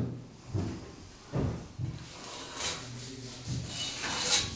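A spirit level rubbing and scraping against a plaster wall in a few short strokes, the longest near the end.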